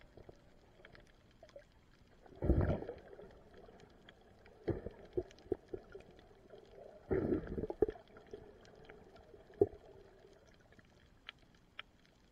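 Underwater sound through a submerged camera: muffled rushes of moving water, about two and a half, five and seven and a half seconds in, over a faint scattering of clicks.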